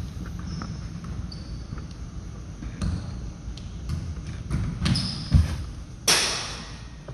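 A baseball pitch in an indoor pitching tunnel: a heavy thump as the pitcher's stride foot plants on the turf, then about two-thirds of a second later a loud smack as the fastball hits at the far end, ringing on in the big hall.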